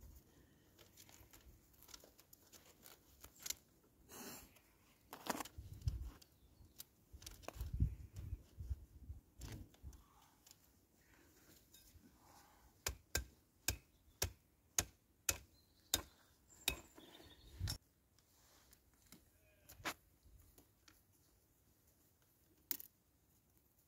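Willow rods being handled and woven through a panel's upright stakes: rustling with many sharp clicks and knocks of wood on wood. About halfway through comes a run of about ten evenly spaced clicks, roughly two a second.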